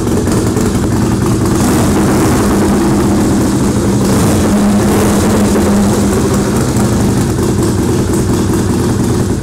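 Fuel-injected Harley-Davidson Springer Softail's V-twin engine running, loud and steady, belching out its exhaust note, until it cuts off suddenly at the end.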